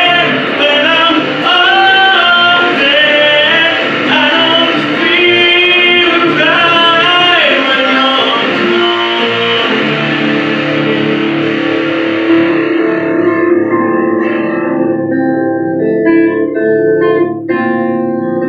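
A male voice singing over electric and acoustic guitars played live, the electric through a small amplifier. About halfway through the singing stops and the two guitars play on with long held notes.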